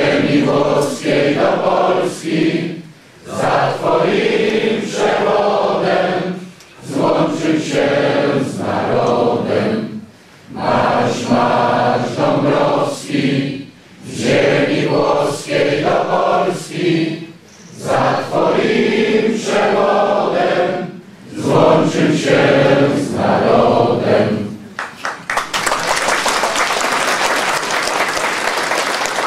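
A large crowd singing together in unison, in phrases of a few seconds with short breaks between them, then breaking into applause about 25 seconds in.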